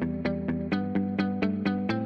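Background music: a quick run of picked notes, about four a second, over a held chord.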